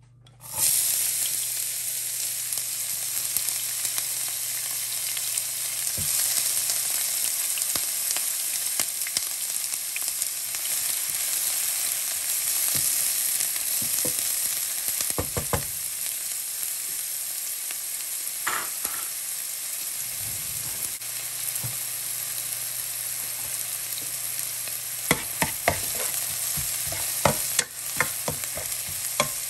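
Chopped onion hitting hot oil in a nonstick frying pan, bursting into a loud sizzle about half a second in, then frying with a steady sizzle. A spatula stirs it, with scattered clicks and scrapes against the pan that grow more frequent near the end.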